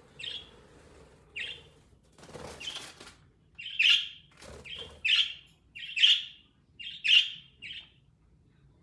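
Pet budgerigar chirping in short, high calls about once a second, getting louder and more frequent about four seconds in, with a brief rustle about two and a half seconds in.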